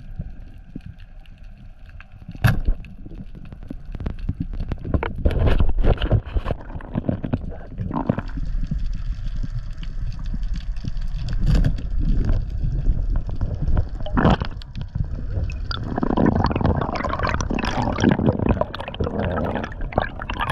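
Underwater sound through an action camera on a free dive: water rushing and gurgling past the housing, with scattered sharp clicks and knocks. In the last few seconds it turns into a denser churning and bubbling.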